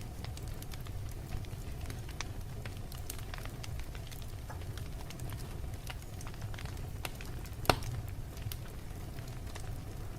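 Wood fire crackling in a fireplace: scattered small pops and snaps over a steady low rumble of the flames, with one sharp, louder pop about three-quarters of the way through.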